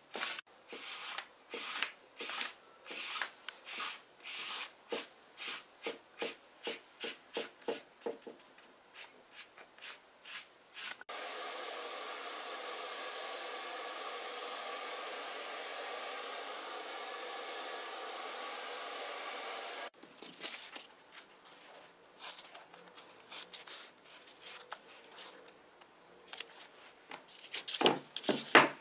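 Hand rubbing colour into upholstery leather in quick strokes, about two a second. About eleven seconds in, a steady blowing noise from an air tool aimed at the leather starts, runs for about nine seconds and cuts off suddenly. Scattered rustling and handling noises follow, with a louder knock near the end.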